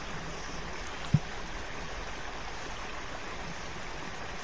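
Shallow stream running steadily over its bed, an even rush of water. A single short thump about a second in.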